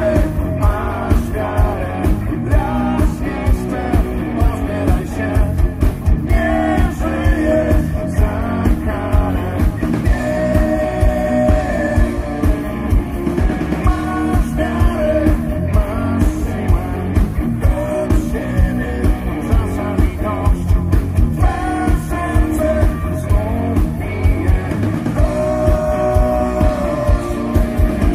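Live rock band: a man singing over electric guitars and a steady, regular drum beat.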